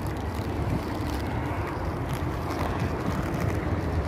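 Steady rushing noise of wind on the microphone and road noise from a moving bicycle, heaviest in the low end, with a few faint ticks.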